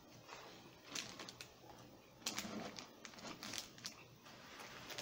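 Close-up chewing of a mouthful of toasted buffalo chicken sandwich, with scattered soft crackles and crinkles of crust and paper wrapper.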